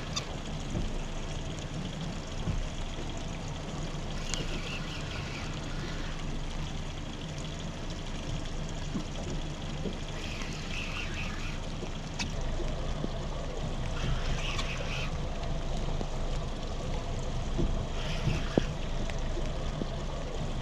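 Steady rain and a boat's outboard idling, with a spinning reel cranked in short spells several times as a hooked fish is reeled in on a bent rod.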